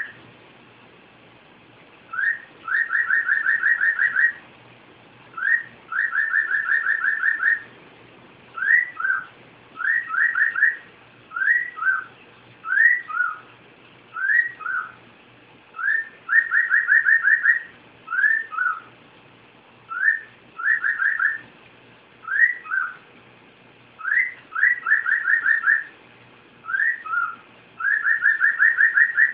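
Cockatiel whistling a repeated tune in short phrases: a quick run of short rising notes, alternating with two-note calls that rise and then fall, with brief pauses between phrases.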